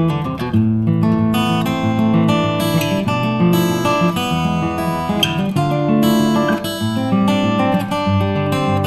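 Background music: acoustic guitar playing, plucked and strummed notes.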